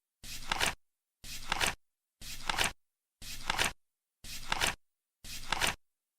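Flip clock's flaps turning once a second: six times, each a short flutter of about half a second that ends in two or three sharp clicks, with nothing between.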